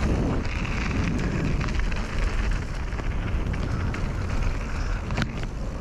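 Wind buffeting the microphone and the rumble of a mountain bike's tyres on a rough downhill trail during a descent, with a sharp knock about five seconds in.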